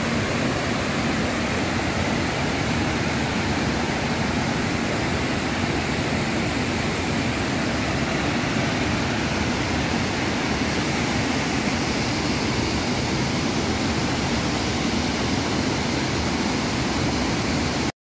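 Steady rushing of Štrbački buk, a wide, multi-tiered travertine waterfall on the Una River, its water pouring over the drops as an even, continuous wash of noise.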